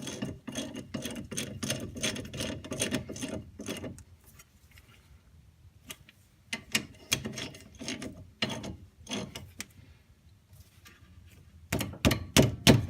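Hand ratchet wrench clicking rapidly as the rear brake caliper bolts are tightened, in two runs of quick clicks with a pause between, then a few louder metal knocks near the end.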